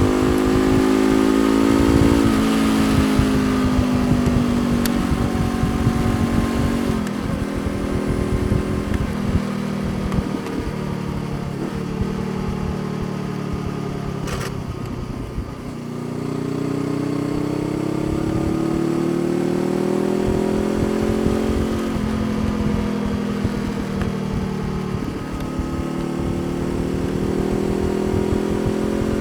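Honda CBR500R's parallel-twin engine under way, pitch rising as it pulls and dropping sharply at upshifts, about seven seconds in and twice more later on. Around the middle it eases off and the revs fall, then it accelerates again.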